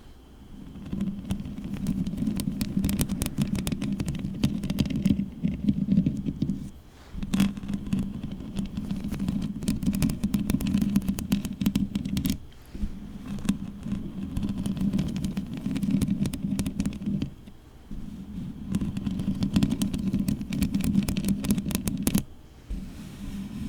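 Long fingernails scratching and rubbing directly on a microphone: a dense, close rumbling scrape with many small clicks. It comes in stretches of several seconds separated by brief pauses.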